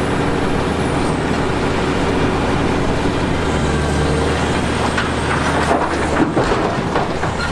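Heavy machinery running steadily: a large SANY crawler excavator's diesel engine working rock. Around five to seven seconds in, a few sharp clatters of rock as the bucket dumps its load into a dump truck.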